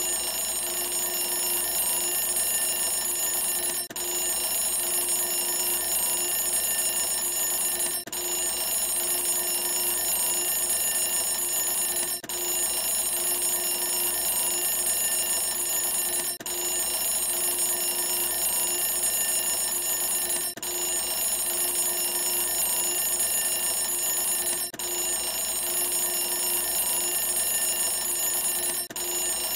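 Countdown timer's end alarm going off: a steady alarm sound made of several held tones, broken by a brief gap about every four seconds as it repeats.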